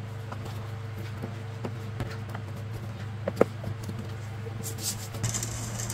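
Sheets of printed sticker paper being leafed through by hand: faint paper rustles and light taps, with a couple of sharper ticks about three seconds in, over a steady low hum.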